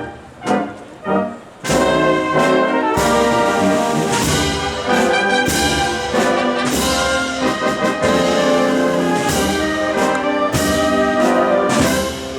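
A Spanish processional wind band plays a processional march, brass to the fore. The first second and a half is quieter, with a few separate hits, and then the full band comes in.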